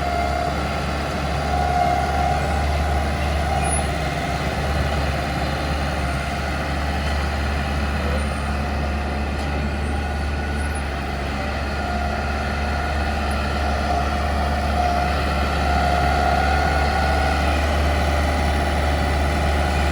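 Heavy diesel earthmoving machine running steadily under load, with a low engine rumble and a high whine that swells and fades several times.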